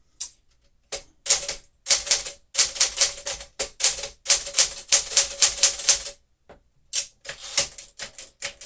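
1964 Smith-Corona Sterling manual typewriter clicking in quick runs of sharp mechanical clicks, densest through the middle, with sparser clicks and short pauses around them.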